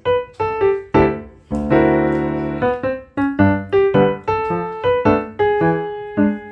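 Background music: a bouncy electric-piano tune of short, quickly fading notes, with one longer held chord about two seconds in.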